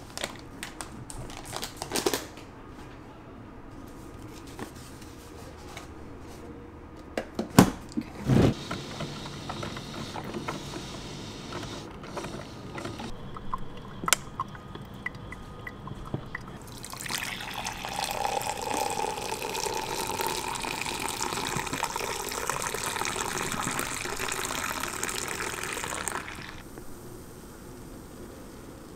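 Coffee being made. A paper coffee bag crinkles at first, two sharp knocks come about eight seconds in, and later liquid runs steadily into a vessel for about nine seconds before stopping abruptly.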